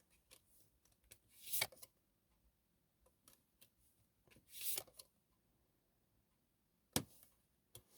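Tarot cards being handled on a table: two short, soft swishes of cards sliding, a few light ticks, and one sharp click near the end.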